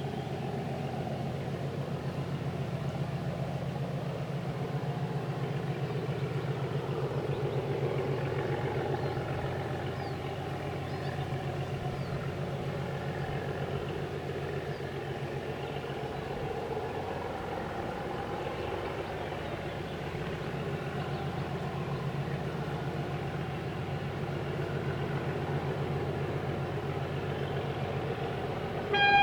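Diesel locomotive engine running steadily at low power, with a fast, even firing pulse that swells gently twice.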